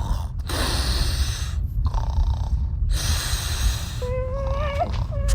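Loud cartoon snoring: long rasping snores with short breaks between them over a deep rumble, and a held pitched tone about four seconds in.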